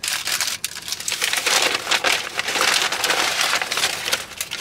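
Crinkling and rustling with many small irregular crackles, as of something crumpled or handled.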